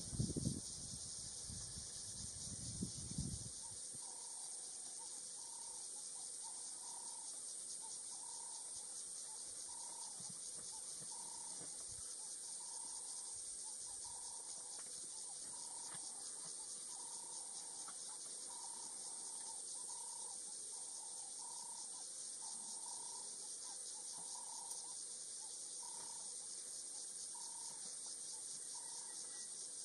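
Steady high-pitched drone of an insect chorus in dry bushveld, with a bird repeating a short call over and over. A few low thuds and rumbles in the first three seconds.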